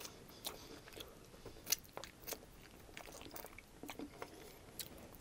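Close-miked biting and chewing of a BBQ rib topped with crispy fried onions: faint, with short scattered crunches and wet mouth clicks.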